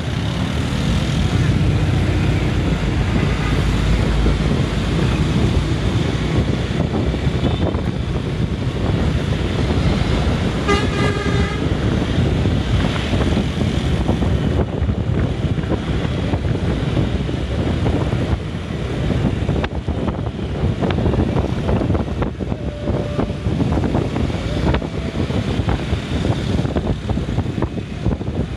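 Road and traffic noise heard from a motorbike riding at speed, with wind buffeting the microphone. A vehicle horn sounds briefly about eleven seconds in.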